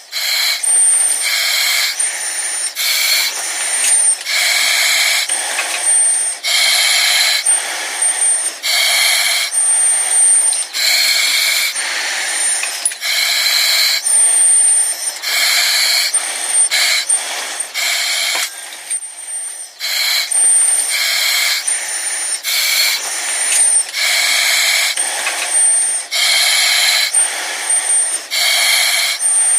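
Breathing through an oxygen mask: hissing breaths in and out through the mask in a steady rhythm, roughly one every one to two seconds, many of them carrying a thin high whistle.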